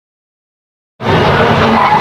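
Silence for about the first second, then a Toyota Celica GT-Four Group A rally car's turbocharged four-cylinder engine running hard, with its tyres skidding as the car slides through a corner.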